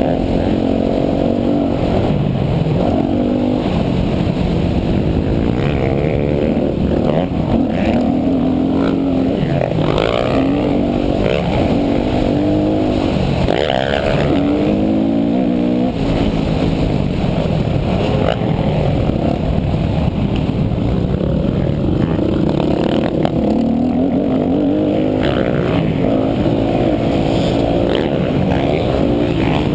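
Yamaha YZ250F single-cylinder four-stroke dirt bike engine ridden hard, its pitch rising and falling over and over as the throttle is opened and shut and the gears change.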